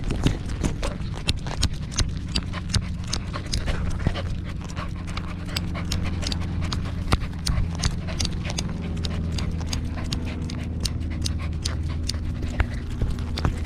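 A corgi panting right at a collar-mounted camera as it moves, with a steady patter of sharp clicks and taps, several a second, from its steps and the jostled collar mount. A steady low rumble runs underneath.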